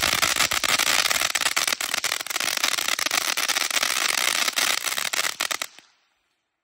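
Fireworks going off in a loud, dense crackle of many rapid small pops, which stops about five and a half seconds in.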